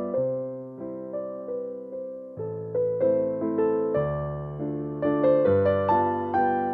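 Background piano music: notes struck and decaying over a low bass line, with the chords changing about every second or two.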